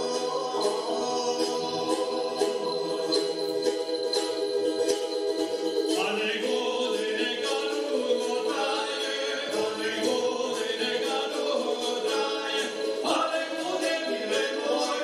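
Two men singing a Serbian traditional song together without melodic accompaniment, on long held notes with sliding ornaments. A light, steady jingling beat runs underneath.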